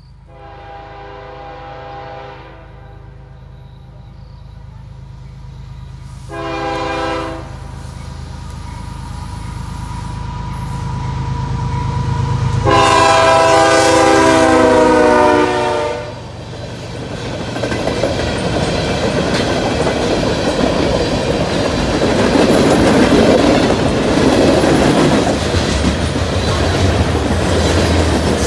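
Canadian Pacific diesel locomotive's air horn sounding a long blast, a short one, then a long, loudest blast as the lead unit passes close by. After that, freight cars roll past with a loud, steady rumble of wheels on rail.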